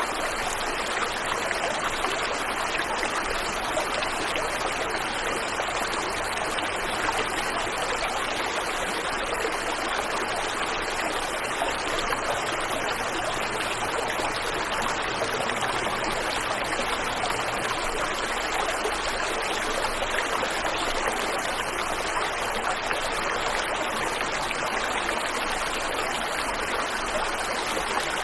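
Waterfall and river water rushing steadily in an even, unbroken wash of noise.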